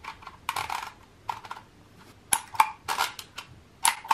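Dymo Omega handheld embossing label maker being worked: irregular sharp plastic clicks, some single and some in quick runs, as its letter dial is turned and the handle squeezed to emboss the tape.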